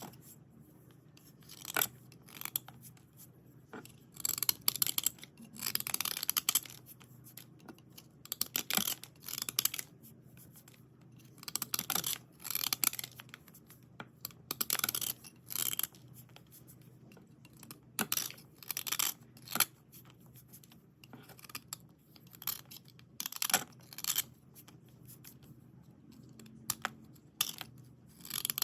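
White slate pencils being dry-cleaned: repeated short strokes of dry scratching, coming in irregular bursts with brief pauses between.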